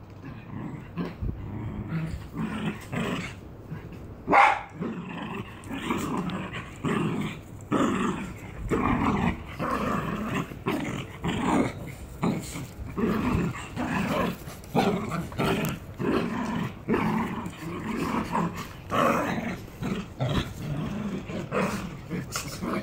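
Small dogs growling and barking at each other in rough play, a rapid run of short growls and yaps, with one loud sharp bark about four and a half seconds in.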